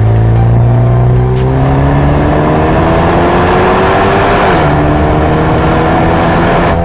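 Mercedes-AMG A35's turbocharged 2.0-litre four-cylinder engine under hard acceleration, heard from inside the cabin. The engine note climbs steadily through a gear, drops sharply at an upshift about four and a half seconds in, then climbs again.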